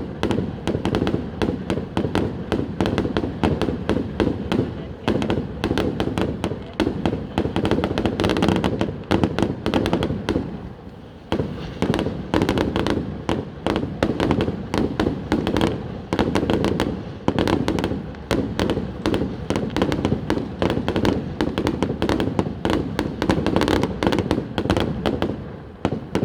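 Fireworks display: a dense, continuous barrage of bangs, many a second, with a short lull about ten seconds in.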